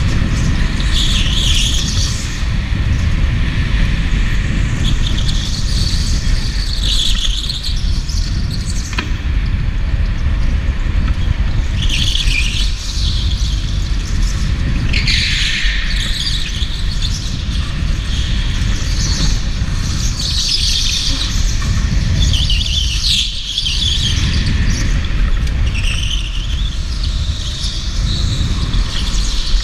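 Electric go-kart driven hard on a smooth concrete track, heard from the kart itself: a steady low rumble of the chassis and air on the camera, with the tyres squealing through the corners again and again, each squeal lasting a second or two.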